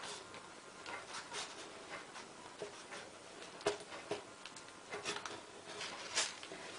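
Scissors snipping through a sheet of raw puff pastry: faint, irregular short snips and clicks.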